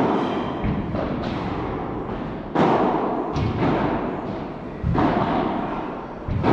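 Padel rally: a padel ball struck back and forth with solid paddle rackets, five or six sharp hits about a second apart, each ringing out in a long hall echo.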